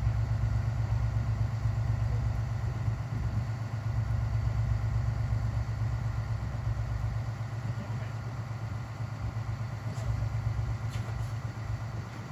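A vehicle engine idling steadily with an even low pulse.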